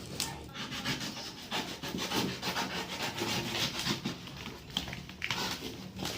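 Irregular rubbing and scraping as packaging is handled and pulled open.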